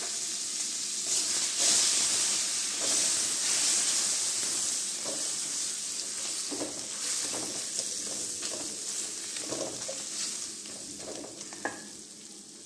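Sliced onions, garlic, peppercorns and a bay leaf sizzling in hot butter in a hammered stainless-steel kadai, with a slotted spatula scraping and stirring against the metal. The sizzle slowly fades, and there is a sharp tap near the end.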